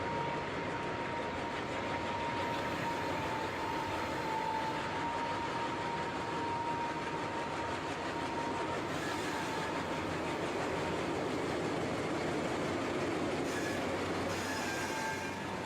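Dubbed sound effect of a full-size train running: a steady rumble of wheels on rail with a continuous whine. A second, higher tone joins near the end.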